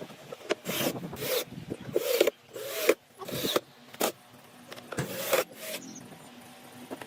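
Hand strokes rubbing or scraping across wood, about seven uneven strokes of roughly half a second each, thinning out after about five seconds.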